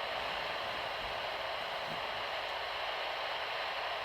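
Steady radio static hiss from a weather radio tuned to a station whose transmitter (KIG86) is off the air, so only noise comes through.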